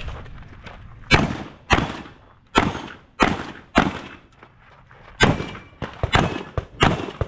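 A shotgun fired in rapid succession, about ten shots with a short pause after the first five.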